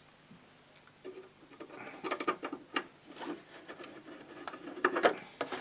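Small parts being handled on a workbench: scattered light clicks, taps and rubbing that start about a second in and come irregularly.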